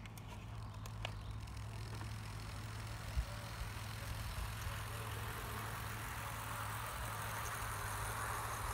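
Model 2-8-0 steam-outline locomotive and its coaches rolling on garden railway track, the running noise of wheels on rails growing louder as the train comes closer, over a steady low hum. A single short knock sounds about three seconds in.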